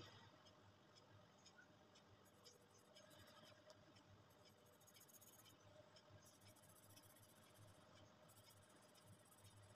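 Faint scratching of a felt-tip sketch pen on paper as it colours in small patches, with small ticks of the tip and a low steady hum underneath.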